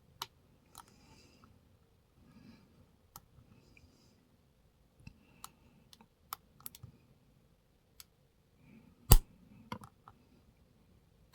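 Lock picking in a pin-tumbler challenge lock: a pick and tension wrench make scattered light metallic clicks and faint scraping as pins are worked with the lock held in a deep false set. There is one much louder click about nine seconds in.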